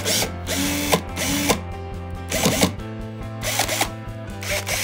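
Parkside 20 V cordless drill driver run in several short bursts of about half a second each while its keyless chuck is tightened onto a drill bit. Background music plays throughout.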